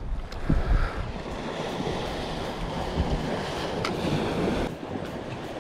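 Sea waves washing and splashing against the rocks at the shoreline, with wind buffeting the microphone.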